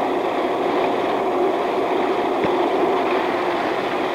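Computer magnetic tape drive running, a steady whirring hum with a faint tick about two and a half seconds in.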